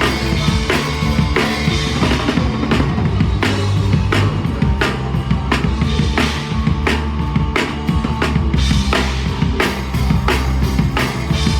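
Live rock band playing an instrumental passage, the drum kit loud and up front: a steady beat of snare and cymbal strokes over kick drum and sustained bass.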